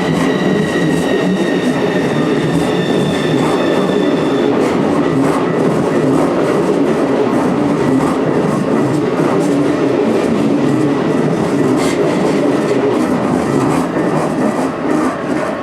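Keikyu electric train passing close by over a level crossing, its wheels clattering steadily on the rails. A thin high whine is heard over the rolling noise at first and fades out about four seconds in.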